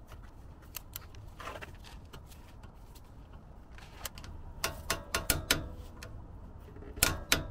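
Click-type torque wrench working a brake caliper bolt: a few sharp metallic ratchet clicks about four and a half to five and a half seconds in, then louder clicks near the end. The wrench's release click is faint enough that it isn't clear whether the 90 ft-lb setting has been reached.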